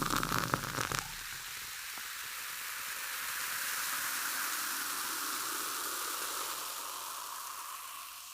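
A few splashing clicks in the first second, then a steady, even hiss that swells in the middle and fades out near the end.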